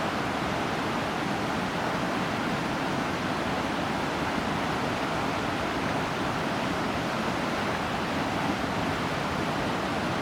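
Steady rushing of water pouring over a waterfall, an even wash of noise without breaks.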